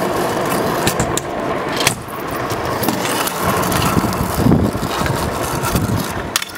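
Freestyle kick scooter's small wheels rolling over rough asphalt as the rider pushes along: a steady rolling noise with scattered clicks and knocks.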